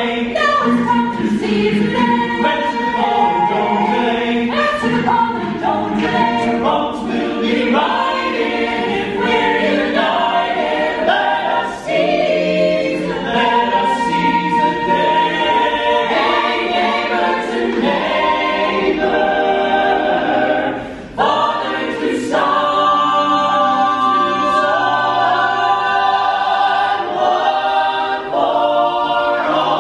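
Mixed men's and women's a cappella choir singing in harmony without instruments, with a brief break about two-thirds of the way through.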